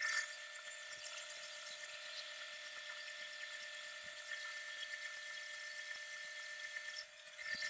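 Steady high-pitched whir of a small power tool running, with a brief louder swell about two seconds in.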